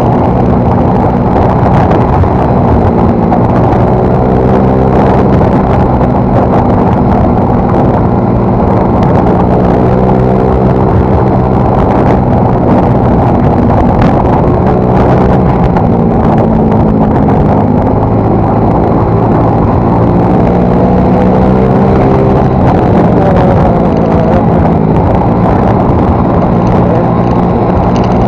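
Yamaha Mio Soul GT scooter's single-cylinder engine running through an aftermarket exhaust, loud and continuous, its pitch rising and falling gently several times with the throttle.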